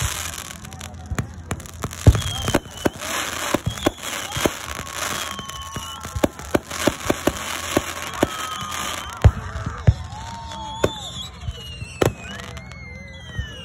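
Fireworks going off: irregular sharp bangs and pops from rockets and aerial bursts, with a few thin whistles sliding in pitch. The loudest bangs come about two seconds in, near the middle and near the end.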